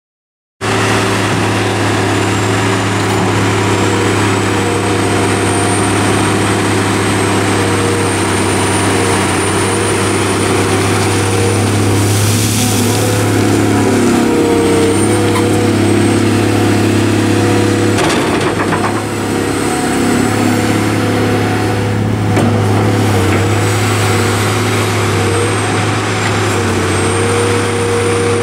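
Caterpillar 345B L Series II hydraulic excavator running steadily under load as it digs and dumps pond silt: a deep diesel hum with a thin high whine over it. A short hiss comes a little before halfway, and a few knocks about two-thirds of the way in.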